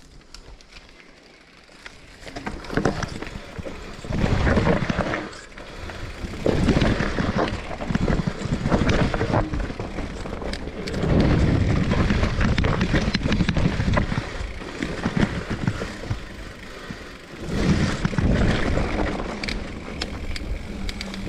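Wind buffeting the microphone mixed with tyre rumble and knocks from an electric mountain bike riding down a dirt forest trail. It is fairly quiet for about the first two seconds, then loud, surging and dipping with the speed and the bumps.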